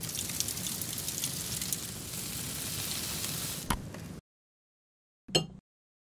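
Food sizzling and crackling as it cooks hot, for about four seconds before it cuts off suddenly. A single short knock follows about a second later.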